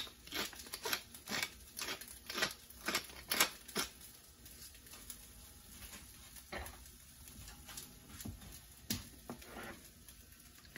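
Black pepper being shaken from a small plastic pepper container in a quick run of sharp clicks, about two or three a second. The clicks thin out to a few scattered taps after about four seconds.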